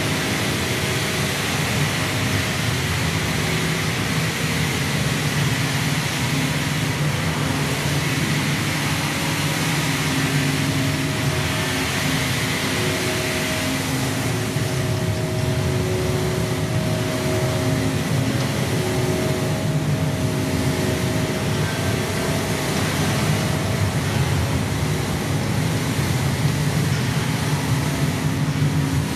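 Electronic drone music from a live dance performance's soundtrack: a loud, steady low hum with a few held tones and a hiss over it, with no beat.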